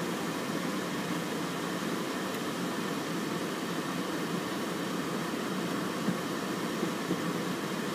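Steady outdoor background noise, an even hiss with no distinct events, and one brief tap about six seconds in.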